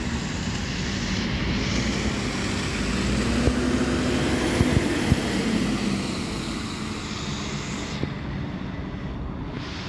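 Double-decker bus pulling away and driving past, its engine getting louder as it draws close and easing off as it moves away, with a few clicks as it passes nearest. Its tyres hiss on the wet road.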